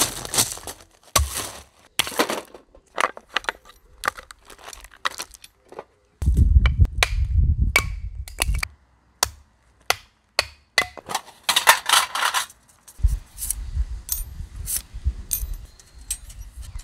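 Footsteps crunching on gravel, then a large knife chopping and splitting kindling on a wooden stump in a run of sharp knocks. Near the end, the metal panels of a folding Firebox camp stove clink together as they are handled.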